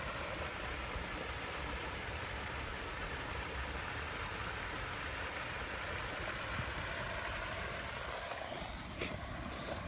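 Steady outdoor rumble and hiss with no clear single source, with a brief rustle near the end.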